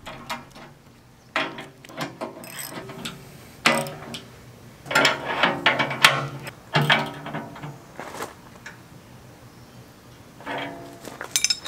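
Hand ratchet wrench clicking in several short bursts, tightening the clamp bolts of a bolt-on tooth bar on a tractor loader bucket.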